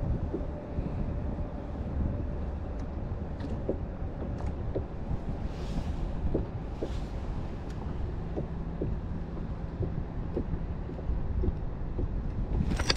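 Wind rumbling on the microphone, with faint light ticks about once a second and a couple of soft hisses in the middle.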